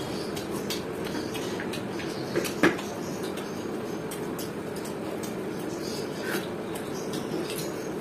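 Two people eating luchi and curry by hand: chewing, with scattered soft clicks and taps of fingers and food on the plates. One sharper click comes about two and a half seconds in, over a steady background hum.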